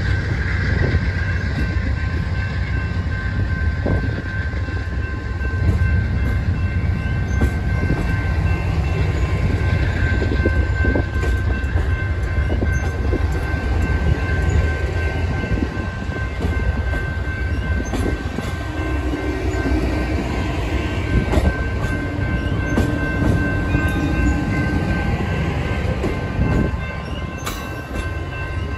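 Amtrak Superliner bilevel passenger cars rolling past close by: a steady rumble of steel wheels on rail with clickety-clack over the rail joints, and a thin steady whine above it.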